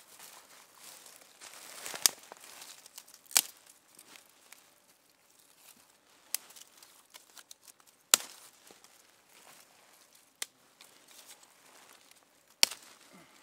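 Dry sticks and twigs being handled and stacked into a teepee fire lay: light rustling and crackling with about six sharp snaps or knocks of wood spread through.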